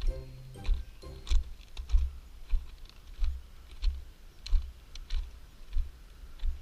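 Footsteps at a steady walking pace, about three steps every two seconds, each a soft thud with a short click. Music fades out about half a second in.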